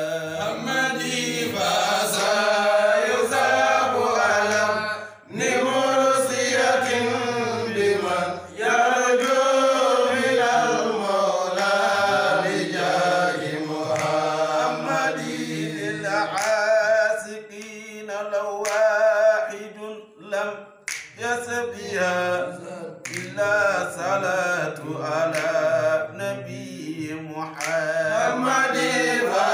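Men's voices chanting an unaccompanied Arabic devotional song in praise of God, with a lead singer and others joining in. The notes are long and held, with wavering pitch and short pauses for breath.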